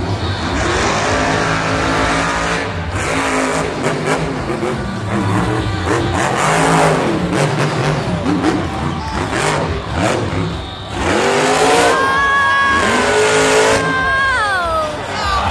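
Grave Digger monster truck's supercharged V8 revving hard, its pitch rising and falling again and again as the truck drives and jumps. Near the end it holds a high, steady note, then the pitch falls away as the truck tips over onto its side.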